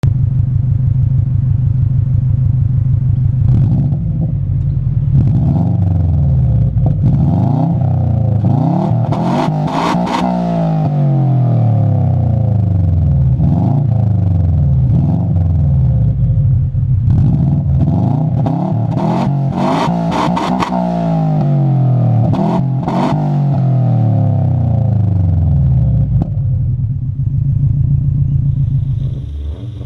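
Subaru Impreza WRX STI's turbocharged flat-four, on a homemade exhaust, idling, then revved in a long series of throttle blips. Two runs build to high revs, around ten and twenty seconds in, with a few sharp cracks at the top. It settles back to a steady idle near the end.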